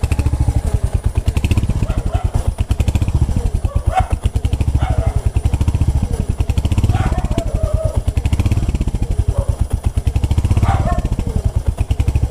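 Royal Enfield Hunter 350's 349 cc single-cylinder engine idling with a steady, even exhaust beat, running smooth.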